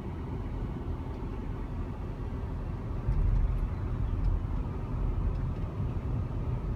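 Low rumble of a moving car, road and wind noise, getting louder about three seconds in.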